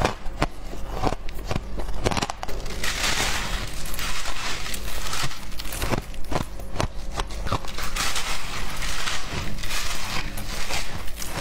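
Packed shaved ice being bitten and chewed: many crisp crunches and crackles in quick succession, thickening into a continuous grinding crunch in places.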